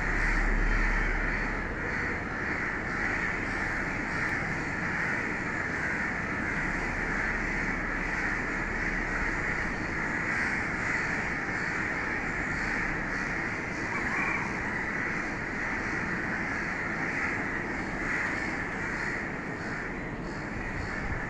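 Many crows cawing at once, their calls overlapping into a continuous chorus. A low rumble sits underneath, coming and going in the first half.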